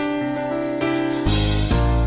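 Background music: sustained keyboard notes. About a second and a half in, a louder, fuller passage with deep bass comes in.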